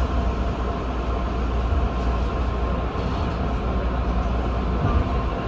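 Electric train standing at a station, heard from inside the driver's cab: a steady low hum from its onboard equipment, with a faint steady whine above it.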